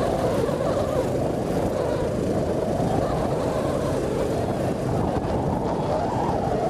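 Steady rumbling wind and road noise from riding a moving motorcycle, with the wind rushing over the microphone.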